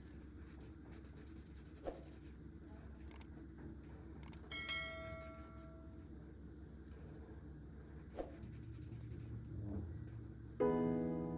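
Soft scratching of a marker tip stroking across paper, with two sharp clicks. About halfway through a single bell-like note rings, and near the end soft piano music comes in.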